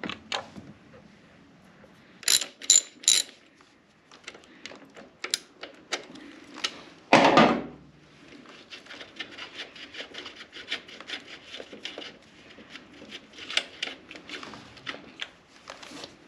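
Metal tools clinking three times, then a louder clunk and scrape about seven seconds in. After that a hand socket ratchet clicks quickly and steadily as bolts on the alternator of the 3.8-litre Jeep engine are worked loose.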